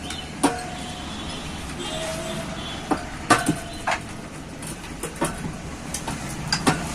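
Scattered sharp metallic clinks and knocks, some ringing briefly, from tools and parts handled during motorcycle tyre and tube work, over a steady background of traffic noise.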